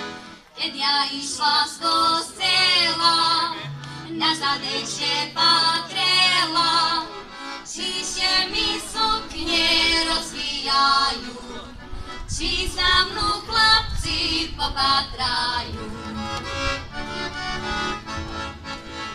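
Two young female singers performing a Slovak folk song in costume, accompanied by a button accordion; the singing starts about half a second in.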